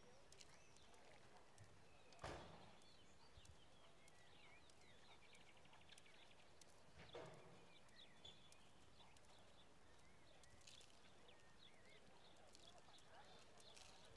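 Near silence: faint outdoor ambience with small birds chirping and two soft thuds, one about two seconds in and one about seven seconds in.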